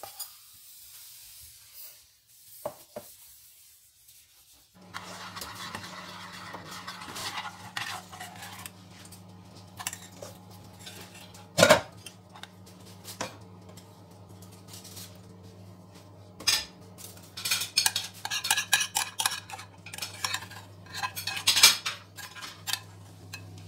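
Stainless-steel saucepan and metal utensil clinking and scraping as caramel is made and poured into a metal ring cake pan, with one sharp metallic knock about halfway through and a quick run of clinks near the end. A steady low hum sits underneath from about five seconds in.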